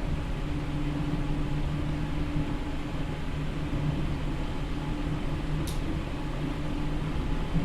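Running sound of a Seibu New 2000 series field-chopper electric train, heard inside the car: a steady low hum with wheel and rail rumble. A brief high-pitched squeak falls away a little more than halfway through.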